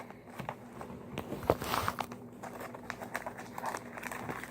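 Plastic shrink wrap crinkling and scattered light taps from a cardboard trading-card box being handled as the wrap is pulled off.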